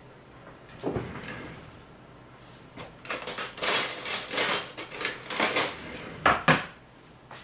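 Kitchen clatter of dishes, pans and utensils being handled: a thump about a second in, a run of scraping and clattering for a few seconds, then two sharp knocks near the end.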